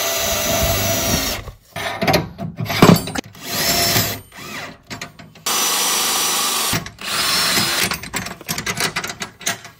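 Cordless drill running in repeated short bursts at a bolt-latch bracket on a metal door frame. A high motor whine rises as it spins up, and the runs end in a string of quick on-off blips.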